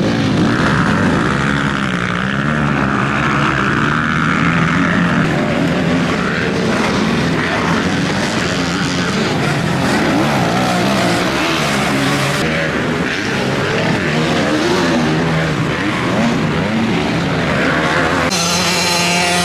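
Motocross dirt bike engines racing, several at once, revving up and down in pitch through throttle and gear changes. One bike sounds louder and clearer near the end.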